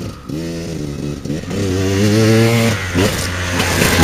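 Dirt bike engine accelerating toward the listener, its pitch climbing and dropping back several times as it shifts up. It grows louder until it passes close by near the end.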